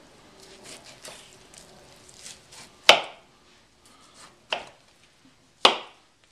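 A knife cutting a thick fat vein off a raw beef brisket on a plastic cutting board: faint slicing and rustling, then three sharp knocks of the knife against the board, a little under 3 seconds in, at about 4.5 seconds and near the end, the first and last the loudest.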